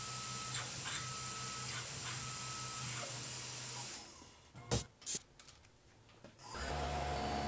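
Tormach PCNC 1100 CNC mill drilling aluminium with a quarter-inch drill: a steady hiss over the spindle's hum, with a short cutting tone about once a second as the drill pecks. About four seconds in the sound drops away, with two sharp clicks. Near the end a different steady machine hum starts.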